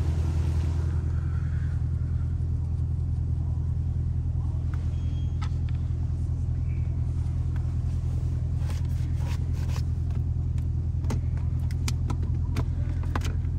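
Straight-piped 5.7-litre HEMI V8 of a 2021 Dodge Durango R/T running steadily at low revs with a deep, even exhaust drone. A few light clicks come in the last few seconds.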